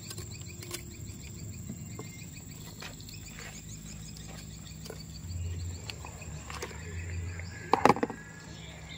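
Faint insects chirping over a quiet outdoor background, with small clicks of metal pliers and a fish grip working on a hooked tiger grouper. Near the end a brief loud clatter as the landing net with the fish is set down into a plastic tub.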